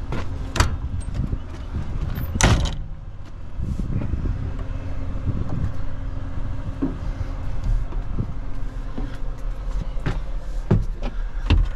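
Knocks and clunks of someone climbing up into a Cat 938 wheel loader's cab and working its door, the loudest a sharp clunk a couple of seconds in. A steady engine idle drones underneath.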